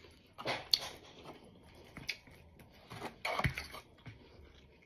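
Eating and table-handling noises: two short noisy bursts about three seconds apart, with a few small clicks between them.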